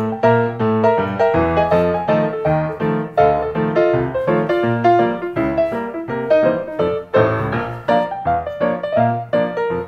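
Background piano music: a brisk run of notes, several a second, over lower bass notes.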